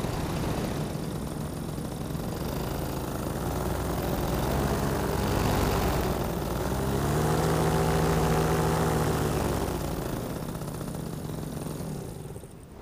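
Nitro 200 two-stroke paramotor engine running in flight, with wind rushing past. The engine note swells and rises about halfway through, then eases off, and the sound drops away near the end.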